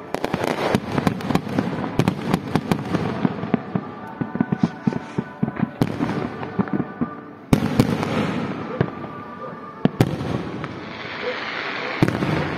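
Aerial fireworks going off: a dense run of rapid crackling pops, with a few louder single bangs in the second half.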